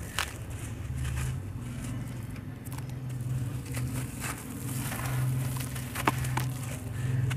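Wet sand-cement chunks crushed by hand and dropped into a basin of muddy water: gritty crunching and crackling with splashes and drips, and one sharp crack about six seconds in, over a steady low hum.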